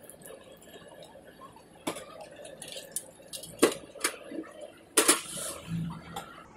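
A metal skimmer clinks and scrapes against an iron kadhai and a steel strainer bowl, four sharp strikes in all, the loudest about halfway and a second later. Under them, pakoras crackle as they fry in hot oil.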